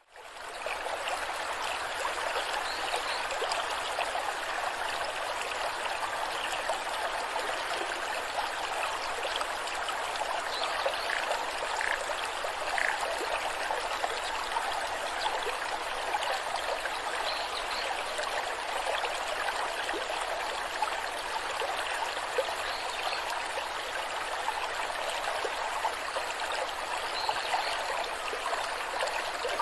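Waterfall water cascading, a steady, even rush of splashing water that fades in at the very start.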